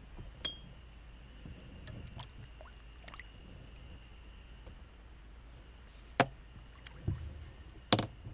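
Occasional knocks and taps on a fishing kayak over a faint, steady low rumble. The sharpest knocks come about six and eight seconds in.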